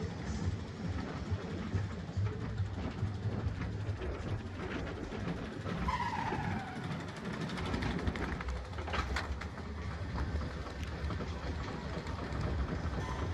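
Steel roller coaster train rolling along its track, heard from aboard: a steady low rumble with rattles and clicks as it heads toward the chain lift hill. A brief falling squeal about six seconds in.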